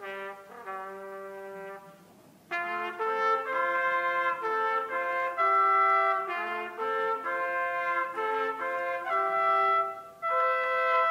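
Two trumpets playing a slow passage of long held notes together in harmony. There is a brief gap about two seconds in, and the notes come back louder.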